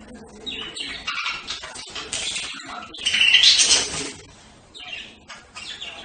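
Budgerigars chirping and chattering in quick, overlapping calls. The loudest burst comes about three seconds in and lasts about a second, and the chatter is sparser near the end.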